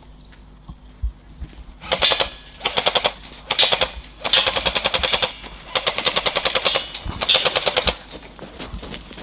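Airsoft rifles firing full-auto in a series of about six rapid rattling bursts, starting about two seconds in, with short pauses between them.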